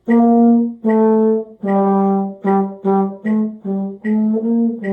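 A single brass or wind instrument plays a slow, simple melodic phrase of about nine or ten separate notes, the last one held. A metronome clicks steadily beneath it, about once every 0.8 seconds.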